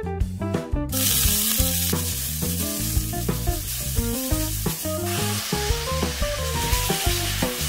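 Sliced onions sizzling in hot oil in a cast-iron skillet, starting about a second in and stirred with a silicone spatula. The sizzle grows louder from about five seconds in, when marinated sliced pork goes into the pan. Background music plays throughout.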